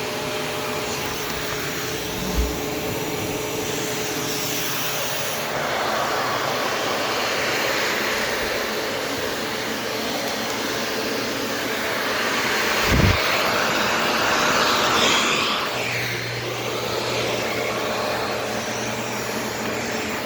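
Shark Navigator DLX upright vacuum cleaner running while vacuuming the floor, its noise swelling and easing over several seconds. Two dull knocks, about two seconds in and about halfway through.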